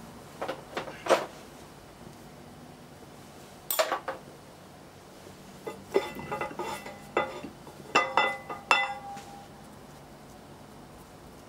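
Steel engine parts clinking and knocking against each other as the bare crankshaft and connecting rods are handled, in bursts of sharp strikes. Several of the later strikes ring briefly, like metal on metal.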